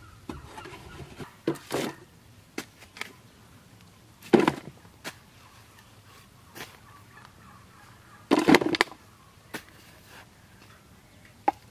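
Wet mud being scooped and packed around a plastic bottle sunk in a muddy trench: a few short, irregular squelching slaps and scrapes, the loudest about four and eight and a half seconds in, with small clicks between.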